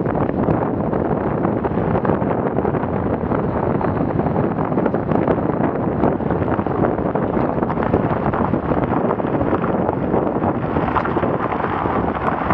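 Wind buffeting a camera mounted on the outside of a car, mixed with the steady rumble of the car driving over a rough grass and dirt track at about 35 km/h, full of small knocks and rattles.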